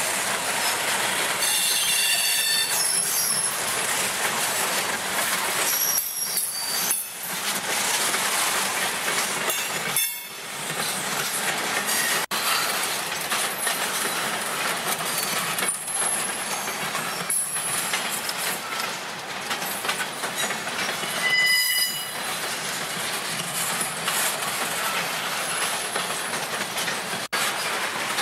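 Norfolk Southern freight cars rolling past: a steady rumble and clatter of wheels on the rails, with brief high-pitched wheel squeals several times.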